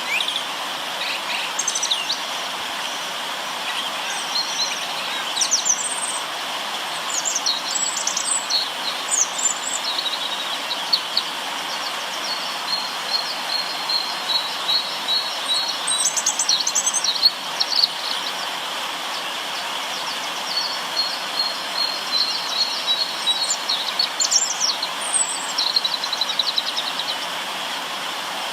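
River water running steadily under many birds chirping and singing, with a few songs made of rapid trills of repeated notes.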